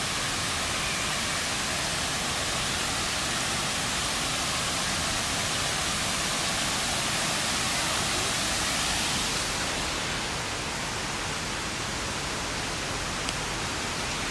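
Waterfall on a creek, its water rushing steadily, a little softer about ten seconds in.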